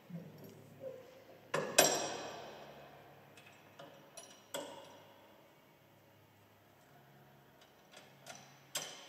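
Metal clanks and taps of a wrench and steel parts on a combine grain header's frame: a few light ticks, then one loud ringing clank a little under two seconds in and a second clank near five seconds, with light taps near the end.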